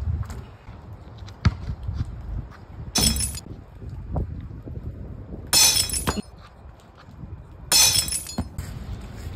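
Basketball hitting a Lifetime portable hoop's backboard and rim: three short rattling crashes a couple of seconds apart, after a couple of sharp thuds in the first two seconds. The shots are misses.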